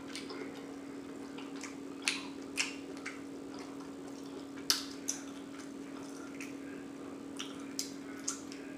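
Wet mouth smacks and clicks of someone chewing seafood: a scattering of short, sharp smacks every half second to second and a half, over a faint steady hum.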